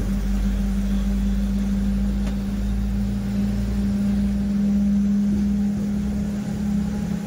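Train running along the track, heard from its front end: a steady low rumble with a strong unbroken hum that swells a little in level.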